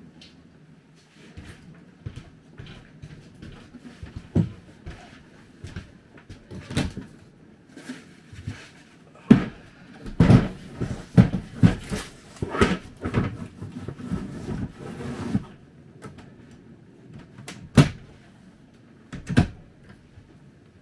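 Overhead trailer cabinet being opened, shut and rummaged: a run of knocks and rattles, busiest in the middle, then two sharp single knocks near the end.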